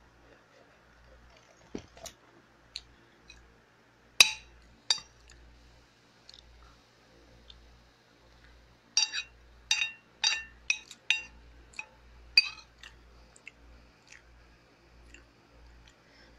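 A metal spoon clinking and scraping against a dish while someone eats. It strikes twice about four seconds in, then a quick run of about eight clinks a few seconds later, with smaller ticks in between.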